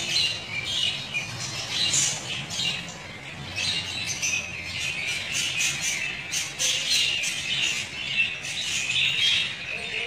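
A flock of African lovebirds chattering and squawking continuously: many overlapping short, shrill calls.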